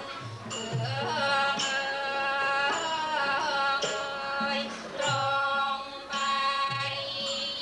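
Thai piphat ensemble music: a held, wavering melody line over percussion strokes that fall about once a second.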